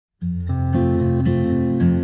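Background music: a plucked acoustic guitar, starting a fraction of a second in with a series of ringing notes.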